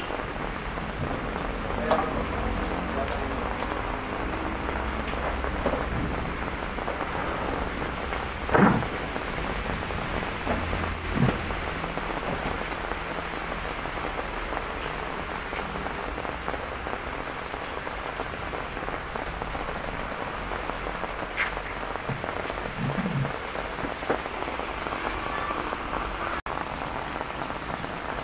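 Heavy typhoon rain falling steadily on a wet concrete floor, with a few brief knocks and splashes from laundry being handled in plastic basins.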